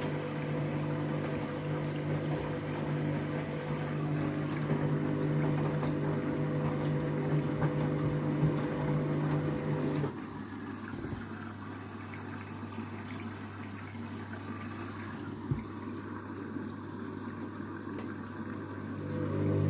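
Washing machine draining: the drain pump hums steadily with water running through it. About halfway the hum cuts off, leaving a quieter, lower hum that grows louder near the end.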